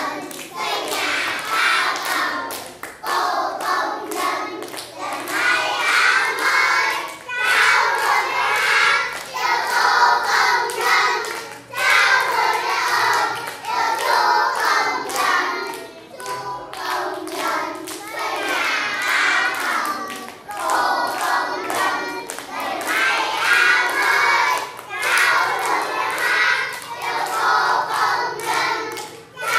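A group of kindergarten children singing a song together while clapping their hands along with it.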